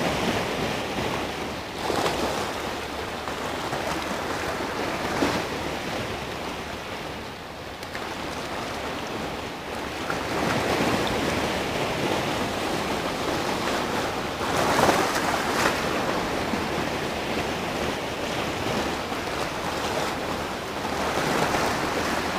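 Sea surf breaking and washing around rocks, a loud steady rush that swells every few seconds as each wave breaks.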